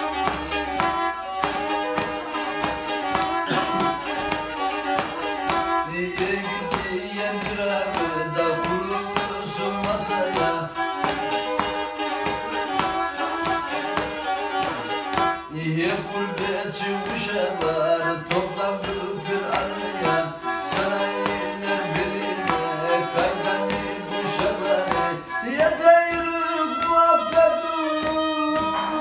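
Black Sea kemençe, the small three-stringed upright fiddle, bowed in a quick, busy folk tune, the notes changing rapidly, with a brighter, louder passage near the end.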